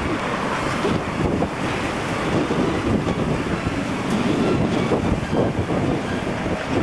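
Wind buffeting the camcorder microphone: a loud, gusting rush of noise, heaviest in the low end.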